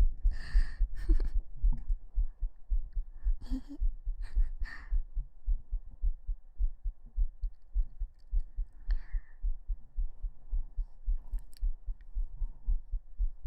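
Human heartbeat picked up by a binaural microphone pressed against the chest: a steady, even run of low, muffled thumps.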